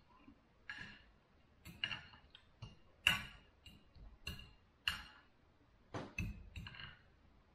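Knife and fork clinking and scraping on a ceramic plate while cutting sausage: about a dozen short, irregular clicks and scrapes, the loudest about three seconds in.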